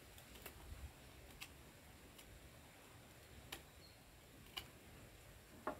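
A knife cutting into the base of a woody stem cutting: faint, sharp clicks that come irregularly, about once a second.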